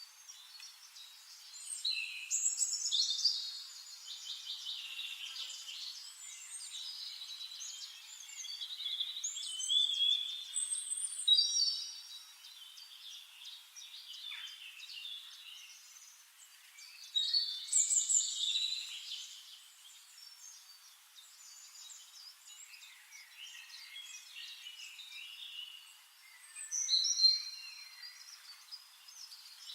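Songbirds singing: varied chirps, trills and sweeping notes in overlapping phrases, with a few louder phrases standing out.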